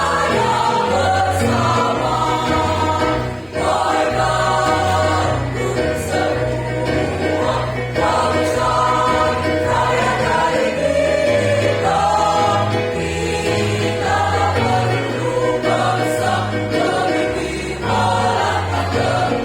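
A choir singing in parts, with held chords over a low bass part that changes note every second or so.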